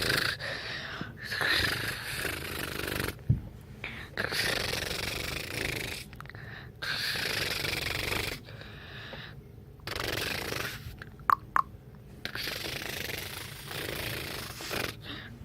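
Dragonfly wings buzzing in stop-start bursts of one to a few seconds, with short gaps between them. Two sharp clicks come a little past the middle.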